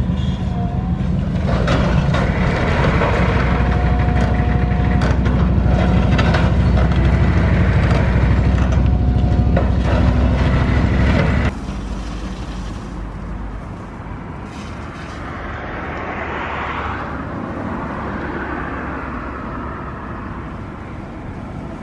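A long-reach demolition excavator's diesel engine runs under load while its hydraulic crusher jaws crunch through concrete, with repeated cracks and knocks of breaking and falling debris. About eleven seconds in the sound drops suddenly to a quieter, more distant machine noise.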